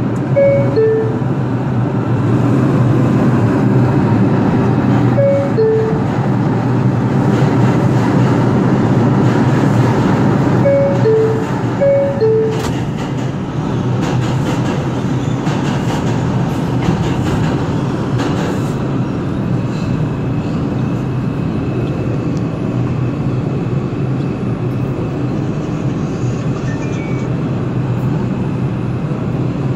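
New York City subway 4 train: a two-note falling door chime sounds four times, then the train pulls out and runs on with a steady rumble and wheel noise. Near the end it is moving past a station platform.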